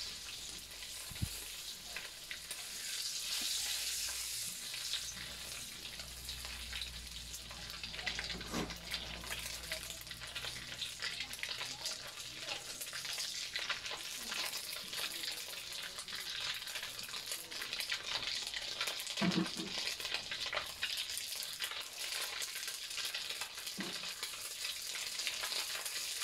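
Dried anchovies (ikan bilis) frying in hot oil in a wok: a steady sizzle with many small crackles as they are fried until crisp, stirred with a silicone spatula.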